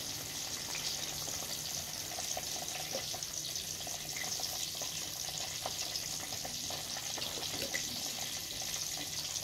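Battered catfish deep-frying in a pan of hot oil: a steady sizzle with scattered small crackles and pops.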